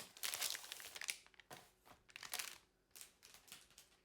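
Packaging crinkling and rustling as it is opened and handled: a dense stretch of rustling in the first second, then a few shorter crinkles that fade out.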